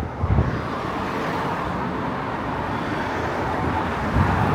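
Road traffic on a town street: cars driving past with a steady noise of engines and tyres.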